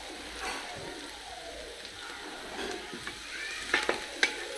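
Chopped onions and green chillies sizzling in mustard oil in an aluminium pressure cooker as they are fried until brown, stirred with a wooden spatula, with two sharp knocks near the end.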